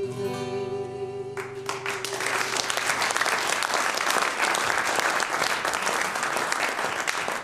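Acoustic guitar's closing notes ring out at the end of a song. Audience applause breaks out about a second and a half in and carries on.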